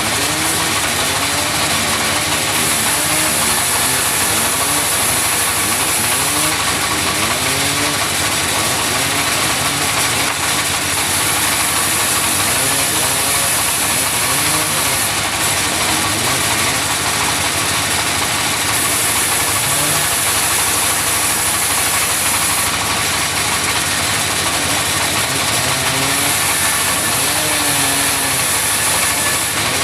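Sawmill machinery running steadily at a constant loud level, with a high hiss that comes and goes every few seconds.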